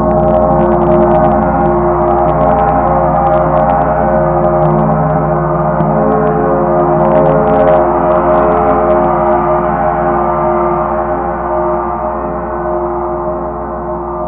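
Large chau gong rolled with felt mallets, building a sustained wash of many overlapping ringing tones. Light clicks of the mallet strokes come through during the first ten seconds, and the ringing eases off slightly near the end.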